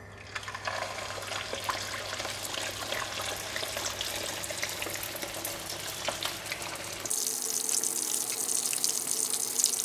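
Whole flour-coated sea bass deep-frying in hot oil: a steady bubbling sizzle with scattered crackles that starts as the fish goes in. About seven seconds in it abruptly turns louder and hissier.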